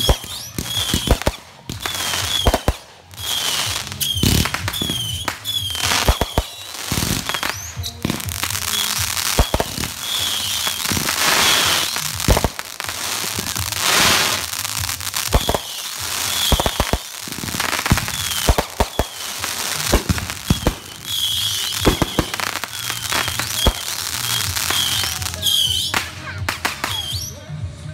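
Backyard consumer fireworks cake firing: a rapid, irregular series of sharp bangs from bursting aerial shells over a steady crackle.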